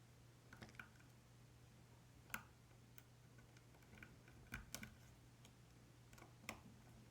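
Faint, irregular metallic clicks of a hook pick and tension wrench working the spool pins inside a Yale 500 lock, about nine scattered ticks with the sharpest a little over two seconds in. A steady low hum runs underneath.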